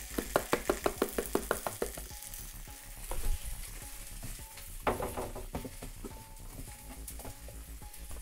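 A spice jar of paprika is shaken hard over a bowl, about a dozen quick, evenly spaced shakes over the first two seconds. A pan of cauliflower steak sizzles in the background, with a couple of short clatters around three and five seconds in.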